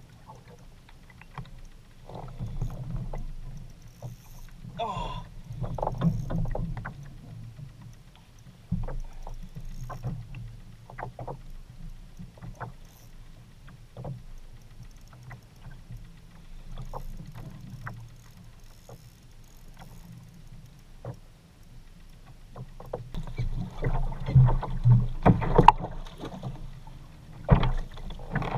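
Kayak fishing sounds: scattered clicks and knocks of the fishing reel and the plastic kayak, over a low rumble of wind and water on the hull. Near the end comes a run of louder knocks and splashing as the hooked fish is brought alongside and lifted from the water.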